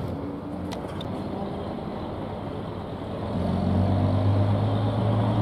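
A single-deck bus's diesel engine running as the bus pulls across close by, growing louder a little over three seconds in.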